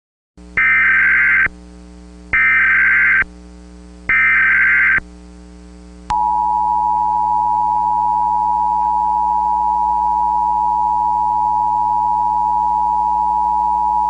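Emergency Alert System SAME header, three roughly one-second bursts of warbling digital data tones, followed about six seconds in by the steady EAS two-tone attention signal, which holds for about eight seconds over a faint low hum.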